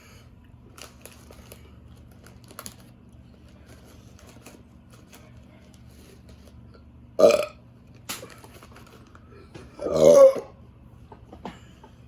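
A person burping twice: a short burp about seven seconds in and a longer, louder one near ten seconds, with faint small clicks in between.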